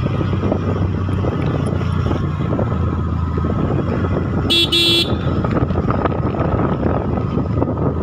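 Steady engine and road noise from a moving vehicle, with one short horn toot of about half a second about halfway through.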